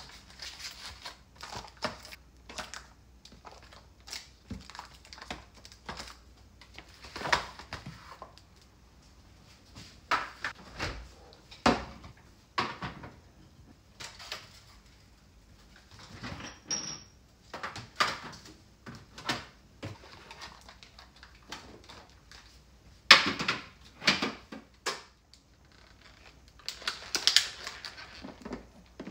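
Plastic food packs and containers handled and set down on a kitchen counter: scattered clicks, light knocks and crinkly rustling of thin plastic, with a sharper knock about two-thirds of the way in. Near the end, the thin clear plastic of an egg pack crinkles as it is handled.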